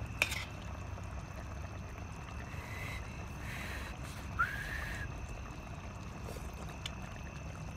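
A metal ladle clinks once against a stainless steel pot of chicken curry just after the start, then a short slurp about four seconds in as the curry is tasted from the spoon, over a steady low rumble.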